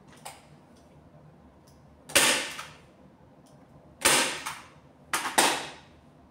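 Handheld staple gun firing staples through upholstery fabric into a bed base: four sharp snaps, one about two seconds in, one about four seconds in, then two in quick succession near the end.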